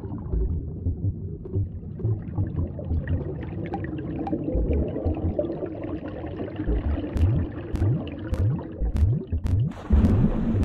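Cartoon underwater sound effect: a low bubbling rumble, then from about seven seconds in a string of quick rising bubble blips with faint clicks. A short hiss comes near the end.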